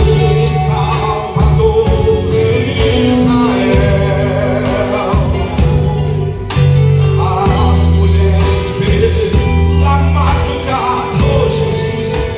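Live gospel band music with singing: a steady bass line and drums under sung melody lines.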